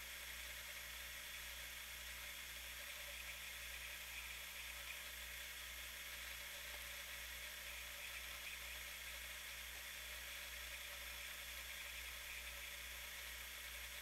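Minifridge compressor running on a reduced supply voltage from a variable transformer, a faint steady low hum under an even hiss.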